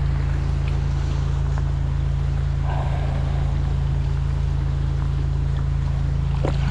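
Steady drone of a high-pressure drain jetter's engine and pump running, with rain falling on the floodwater.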